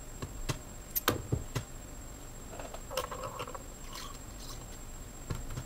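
Small clicks and taps of plastic quartz clock-movement parts and small tools being handled and set down on a wooden desk, with a short scrape about three seconds in.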